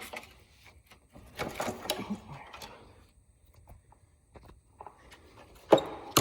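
Scattered metal clicks, scrapes and knocks as a motorcycle brake lever is worked off the small shaft that goes into the wheel, with a cluster of scraping about a second and a half in and a sharp knock near the end.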